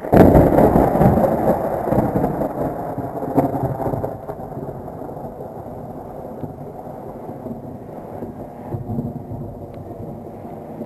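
Thunderclap in a night thunderstorm: a sudden crack, then a loud rumble that dies down over about four seconds into a low, continuing rumble.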